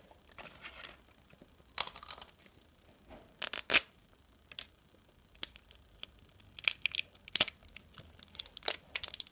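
Wrapping layer of an LOL Surprise toy ball being peeled and torn off by hand, in short bursts of ripping and crinkling with pauses between them.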